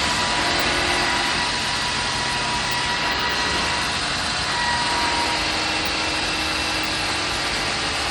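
Wood lathe running steadily while turning a white oak leg, a dense whirring rush with faint whining tones that come and go.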